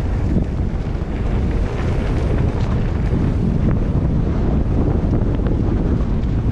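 Wind buffeting the microphone of a mountain bike riding down a trail, a loud steady rumble with scattered small ticks and rattles.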